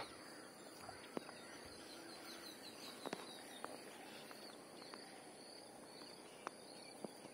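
Very faint outdoor ambience: a steady high-pitched insect drone, a run of small chirps and a few soft ticks.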